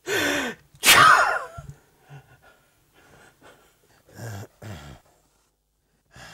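A person's loud, strained vocal outburst: a drawn cry, then a louder explosive, rasping burst about a second in. Two shorter, quieter low groans or breaths follow around four seconds in.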